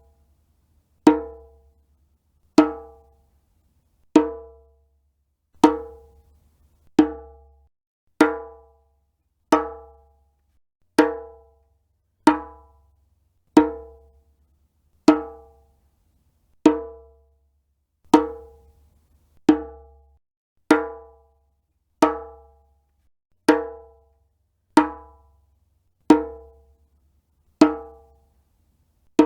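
Djembe drum struck near the edge of its head, one single hit about every second and a half, each a sharp, pitched, ringing stroke that dies away quickly.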